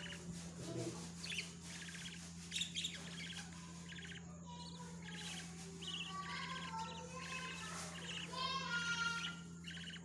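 Budgerigars chirping: a run of short, quick chirps, with a longer, fuller call near the end, over a steady low hum.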